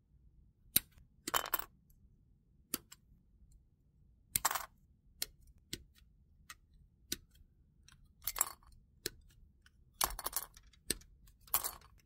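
Sprue cutters snipping plastic model-kit parts off their sprues: a string of irregular sharp clicks and snips, some with a short rattle of plastic.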